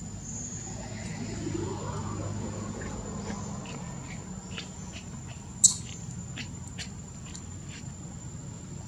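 Insects giving a steady high-pitched drone, with scattered short clicks and one sharp, louder click a little past halfway.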